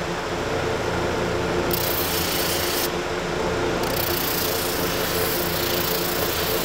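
Double-ended drum sander running with a steady hum while a hickory axe handle is pressed to its spinning abrasive sleeve to round it over. The hiss of sanding on wood comes in about two seconds in, drops out for about a second, then returns as the handle is rotated and given another pass.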